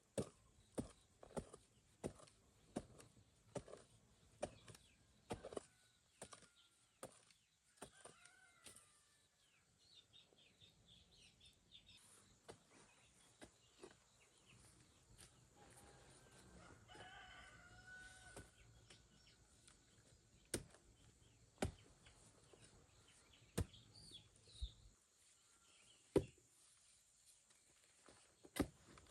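Chickens calling faintly, with a longer call about seventeen seconds in. A steady run of sharp taps, roughly one every two-thirds of a second, fills the first six seconds, and a few single knocks come later.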